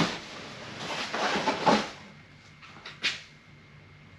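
Rustling and handling noise as packed items are pulled out of packaging, fading after about two seconds, with a single short knock about three seconds in.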